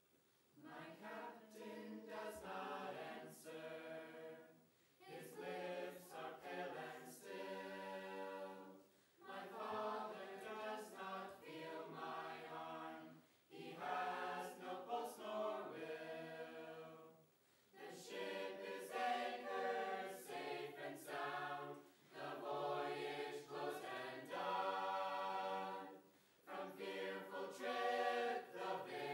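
Mixed-voice choir singing unaccompanied: sustained chords in phrases of about four seconds, each followed by a short break for breath.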